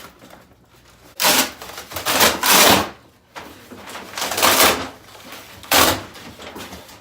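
A flat-pack desk being pulled out of its cardboard box, scraping and rubbing against the cardboard in three long scrapes, the first and longest about a second in.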